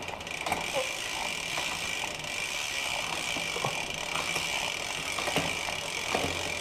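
Mountain bike drivetrain turning with a new 11-speed chain on a Shimano 11-46 cassette while it is being shifted: a steady high whir with scattered clicks as the chain moves across the cogs.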